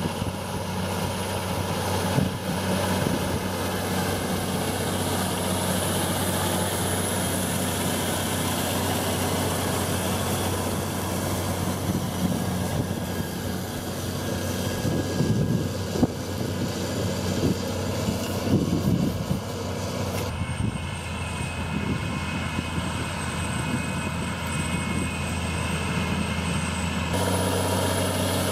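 Large John Deere tracked tractor's diesel engine running with a steady low drone under heavy load as it pulls an 8-metre HORSCH Tiger deep cultivator working the soil down to about 35 cm.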